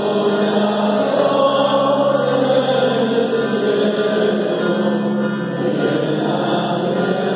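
Group of voices singing a religious chant, with long held notes over a steady low note.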